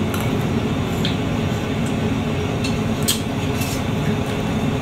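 Steady low rumble of a semi-truck's cab interior, with a few short clicks of chewing close to the microphone.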